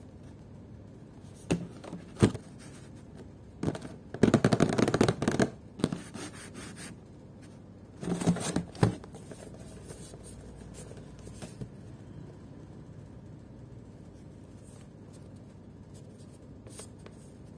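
Hands handling an action figure's cardboard window box with its clear plastic front: a couple of short knocks, then a crackling scrape of packaging about four seconds in and another shorter one near eight seconds, with little else after.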